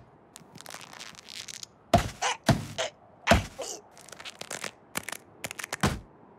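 Cartoon slapstick sound effects: a string of separate thunks and knocks, the loudest about two seconds in and just past three seconds.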